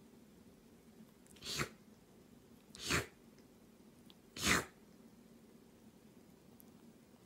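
A kitten sneezing three times, short sharp sneezes about a second and a half apart, each a little louder than the last.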